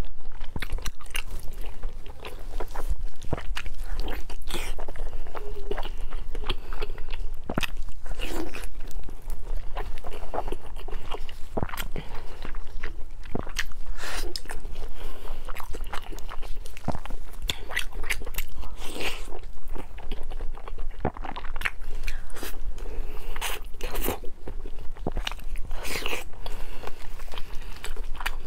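Close-miked biting and chewing of glazed fatty pork: a dense, irregular run of sharp mouth clicks and smacks.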